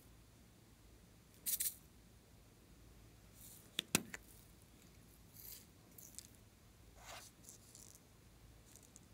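Faint handling of a small plastic container: a brief scrape about one and a half seconds in, a sharp click near four seconds as its lid comes off, then a few soft rustles as red glitter is shaken out.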